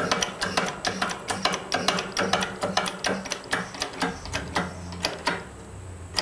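Shop press pump working as a steel stem is pressed into a tight-fitting hole: a rapid, even clicking of about five a second. The clicking stops about five seconds in, leaving a low hum, and there is one sharp click at the end.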